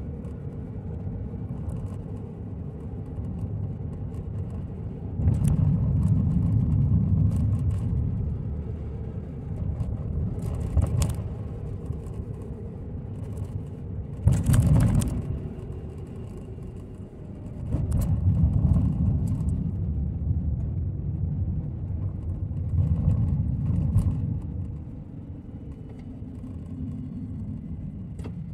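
Road noise inside a moving car's cabin: a low rumble of tyres and engine that swells and fades several times, with scattered light knocks and rattles and one louder thump about halfway through.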